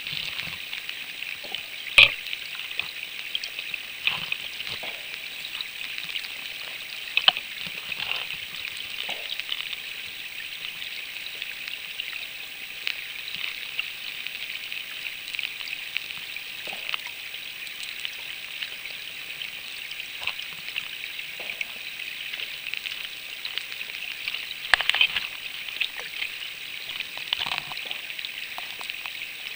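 River water flowing over a rocky bed, heard underwater: a steady hiss with scattered crackling ticks, a sharper click about two seconds in and a small cluster of clicks near the end.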